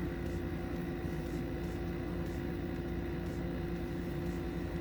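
Steady background hum with a constant tone over a light hiss.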